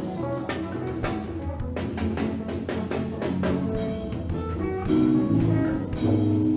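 Church worship band playing an instrumental passage between sung lines: guitar over a drum kit with a steady beat.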